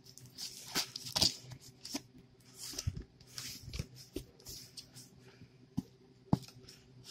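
Folding pocket knife cutting through the packing tape of a cardboard shipping box, with scattered scrapes, clicks and cardboard rustling.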